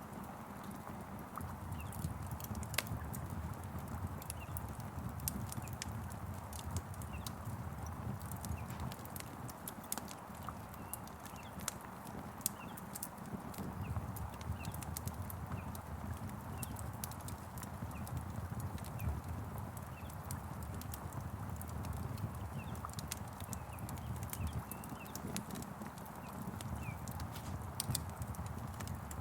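Wood fire crackling, with irregular sharp pops and snaps over a low, steady rumble of the burning.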